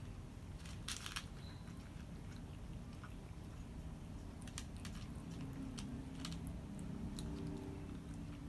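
Cats chewing and crunching cat food, a quick run of crunches about a second in followed by scattered single crunches.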